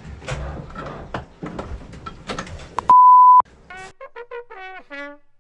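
Edited sound effects: crackling, glitchy static bursts, then a loud steady beep of about half a second, followed by a quick run of short brass-like notes.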